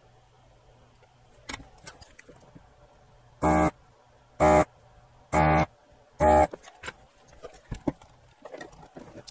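Electric vacuum desoldering gun's pump buzzing in four short bursts, each about a third of a second long and about a second apart, sucking molten solder off the leads of two capacitors being pulled from the board.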